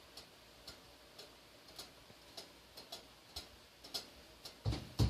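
Stove ticking lightly and evenly, about twice a second. Near the end come two dull, deep knocks in quick succession, the loudest sounds, the unexplained knocking being listened for.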